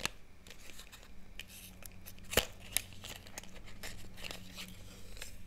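A small paperboard eyeliner box being handled and opened by hand: papery scraping and rustling with scattered sharp clicks and taps, the two loudest a little over two seconds in.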